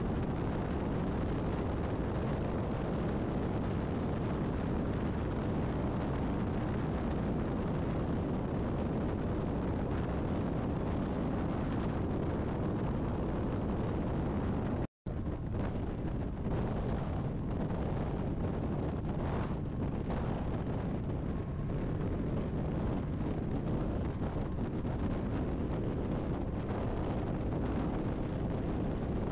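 Steady rumble of wind buffeting the microphone and road noise from travelling at highway speed alongside semi-trucks, with no distinct engine note. The sound cuts out for a split second about halfway through.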